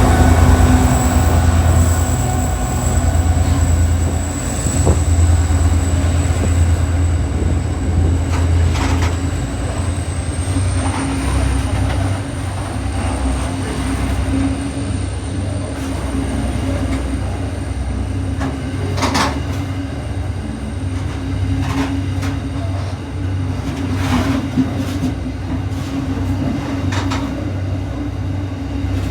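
Train running with a steady low drone and a thin high whine, with occasional sharp clicks and knocks scattered through.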